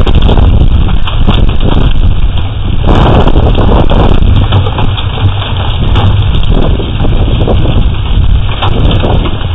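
Loud hail and heavy rain pelting down in a storm, a dense rush of noise full of small impacts, with wind buffeting the microphone as a low rumble.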